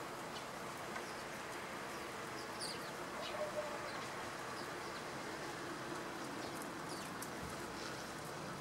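House sparrows giving a few brief, faint high chirps, bunched about three seconds in and again near the end, over a steady low background hum.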